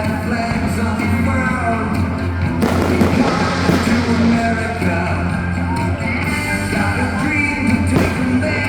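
Rock music with singing, with a brief burst of hiss about three seconds in.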